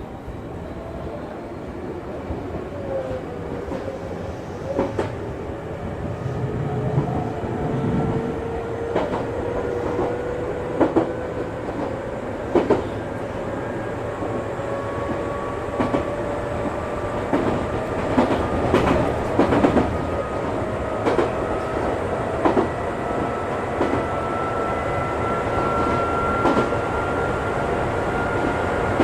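Chichibu Railway electric train running and gathering speed: the motors whine, rising steadily in pitch as the train accelerates, over a low rumble from the wheels. The wheels click over rail joints, the clicks coming closer together as the speed builds.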